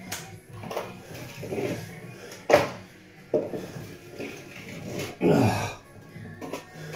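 Irregular scrapes and knocks of plastering tools at work, with one sharp clack about two and a half seconds in and a longer, louder scrape a little after halfway.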